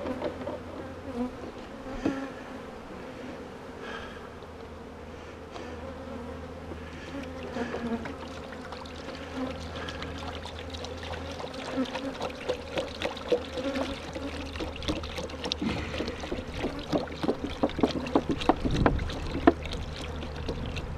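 Honeybees buzzing around an open hive, a wavering hum. From about halfway on, a run of sharp clicks and knocks joins it.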